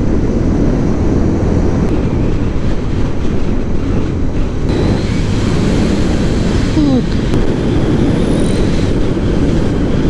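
Motorcycle riding uphill on a winding mountain road: a steady, loud rumble of engine and wind rushing over a GoPro action camera's microphone.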